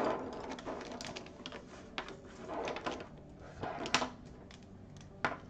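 Plastic paint pens clicking and knocking against a wooden tabletop as they are slid and set down one by one into a row: irregular light taps, with louder clacks about four seconds in and near the end.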